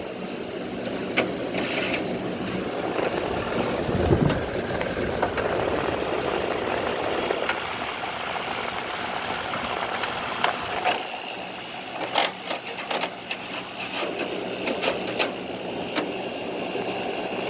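Circa-2000 Gibson 5000 BTU window air conditioner running on high fan with its compressor on: a steady hum under the whoosh of the fan, with scattered clicks and knocks. The unit is barely cooling, which the owner puts down to low refrigerant.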